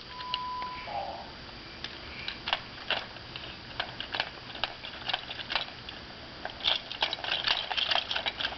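A short steady beep lasting just under a second, then a run of irregular sharp clicks and taps that grow denser near the end.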